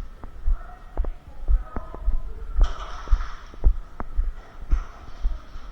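Footsteps thudding into a body-worn camera's microphone at a walking pace, about two a second, with scattered sharp snaps of airsoft gunfire in the field around.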